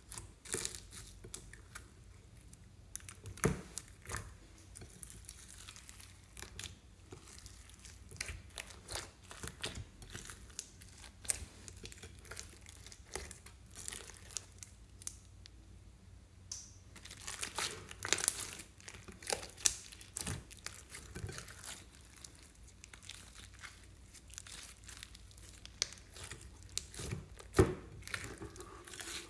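Hands squeezing and kneading slime mixed with glitter and sequins: irregular sticky crackles, clicks and squelches, busiest about two thirds of the way through.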